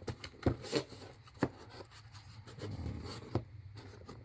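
Handling noise: a few sharp clicks and light rubbing as small objects are picked up and moved.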